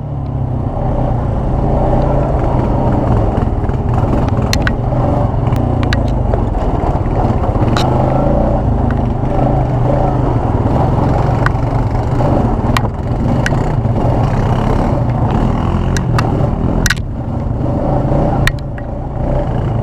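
ATV engine running steadily while riding, with occasional sharp knocks and clatter.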